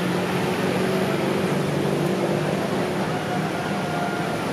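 Steady city traffic noise with a low, even engine hum under it.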